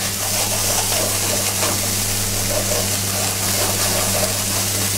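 Diced courgettes sizzling steadily in a hot frying pan as they are cooked by deglazing with a little white stock, kept hot enough to crackle the whole time, over a steady low hum.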